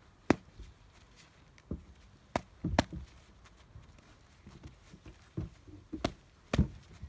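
A string of irregular sharp knocks and taps, about eight in all, some single and a quick cluster a little under three seconds in, with quiet between them.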